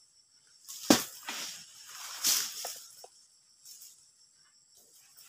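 Oil palm fronds being cut with a long pole sickle: a sharp knock about a second in as the blade bites, then a long rustle of palm leaves about two seconds in as the frond is dragged down and tears loose, followed by a few light ticks.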